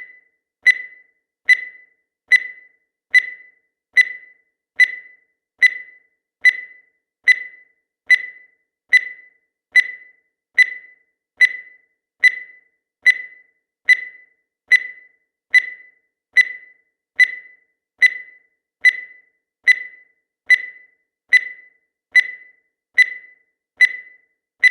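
Short, high-pitched electronic beep repeated at an even pace, a little more than once a second, each beep starting sharply and dying away quickly.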